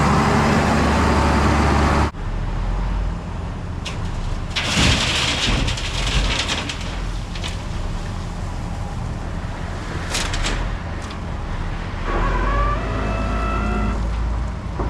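Heavy diesel engines running while crushed recycled concrete (crush and run) is loaded into a dump trailer. Loads of rock pour in with a rushing clatter around five seconds in and again around ten seconds. A rising engine whine follows near the end.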